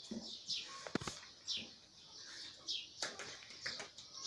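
Short, high, falling chirps repeating about once a second, with a few sharp clicks and knocks from a dog eating from a plastic food bowl.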